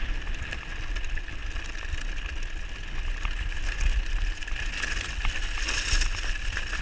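Mountain bike running down a loose gravel track: tyres crunching over stones with scattered clicks and rattles from the bike, and heavy wind buffeting on the microphone.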